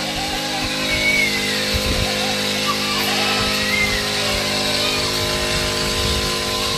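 Small engine of a motorized backpack sprayer running at a steady speed, with guitar music over it.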